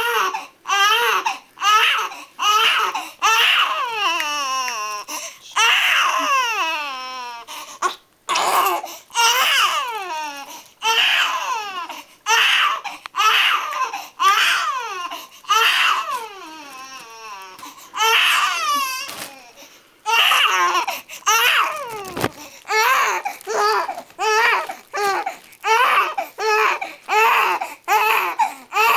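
Infant crying in short, high-pitched, repeated cries, about one or two a second, broken by a few longer wails that fall in pitch: an upset, angry cry.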